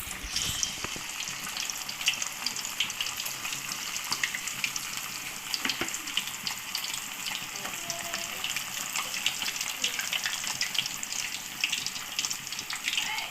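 Marinated chicken lollipops deep-frying in hot oil: a steady sizzle with dense crackling pops throughout.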